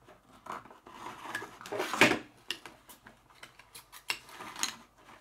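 Cardboard toy packaging being handled: scattered rustles, scrapes and small knocks, with one louder scrape about two seconds in.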